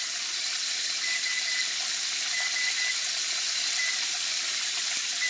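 Chicken fingers frying in hot oil in a braiser, a steady sizzle. Over it, an electric range's control panel gives short high beeps about every second and a half, the stove objecting to a wrong button press.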